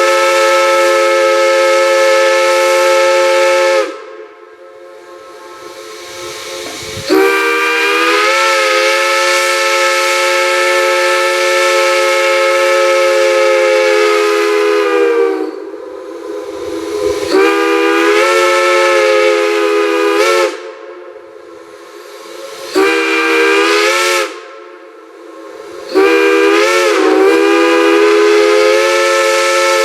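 Chime steam whistle sounding a chord of several notes in five blasts, one long in the middle and the others shorter, with the pitch wavering as each blast opens and steam hissing in the short gaps between them.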